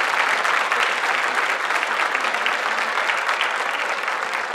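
Crowd applauding: dense, steady clapping that thins slightly near the end.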